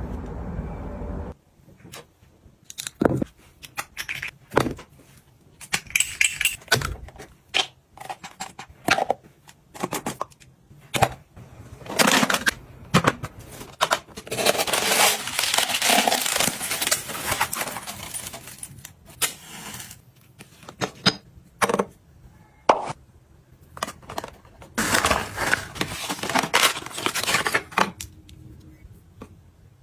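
Close-up handling of beauty products and packaging: scattered taps and clicks as items are set down and picked up, with two longer stretches of crinkling and rustling as a kraft cardboard box is opened and a hand cream is unwrapped from its paper box.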